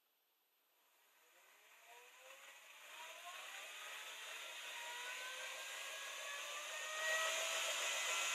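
The electric motor of a crank-driven thrusting machine spins up as its speed knob is turned: a whir with a whine that climbs in pitch and grows louder over a few seconds, then gets louder again near the end.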